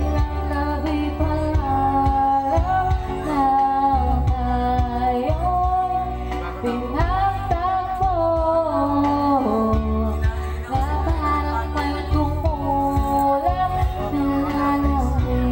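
A woman singing karaoke into a handheld microphone, holding and sliding between notes, over a recorded backing track with a strong, pulsing bass.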